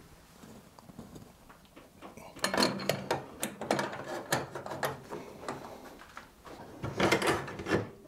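Metal clicks and scraping as a motorcycle rear axle is lined up and slid through the chain adjuster and the rear wheel hub. The clinks come in two quick spells, one starting about two and a half seconds in and another near the end.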